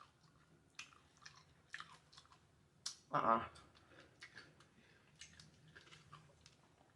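Close-up chewing of chicken: a string of short, irregular wet clicks and crunches from the mouth. A short vocal sound, like a hum or grunt, about three seconds in.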